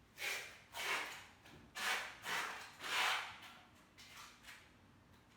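A run of about six short rubbing strokes, each under half a second, then quieter from about four and a half seconds in.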